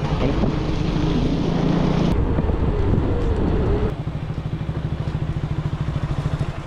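Motorcycle engine running while riding, with wind noise. From about four seconds in it settles to a steady pulsing idle.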